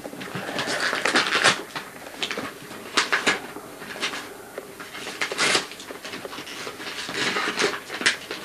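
Shiny gift-wrapping paper crinkling and ripping in irregular bursts as a child tears open a present.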